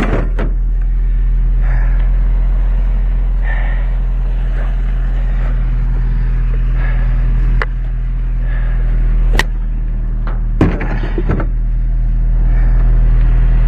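Pickup truck engine idling steadily, with a few sharp knocks about two-thirds of the way in.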